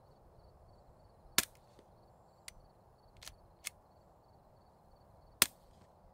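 Two suppressed 9mm pistol shots, about four seconds apart, from a Glock 19X fitted with a CGS Group Kraken 9 suppressor and firing Freedom Munitions 165-grain Hush subsonic rounds. Fainter clicks fall between the two shots.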